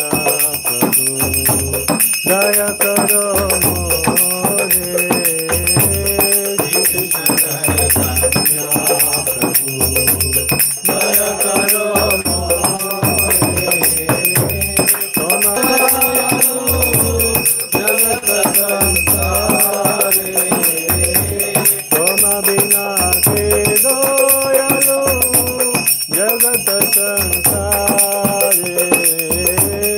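Devotional kirtan: voices singing over a steady drum beat, with bells or hand cymbals ringing without a break.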